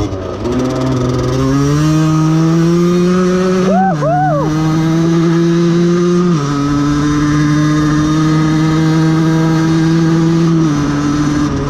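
Aprilia 50cc two-stroke moped engine, tuned with a 70cc kit and an aftermarket exhaust, running under way. Its note climbs in pitch over the first few seconds, then drops in steps three times, about four, six and eleven seconds in, holding steady in between.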